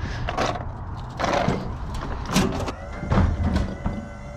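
A run of knocks and scrapes, about six in four seconds, from heavy scrap metal being handled. A faint steady tone comes in near the end.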